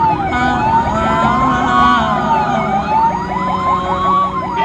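Ambulance siren wailing, its pitch climbing slowly and then dropping quickly, about twice, over road and engine noise.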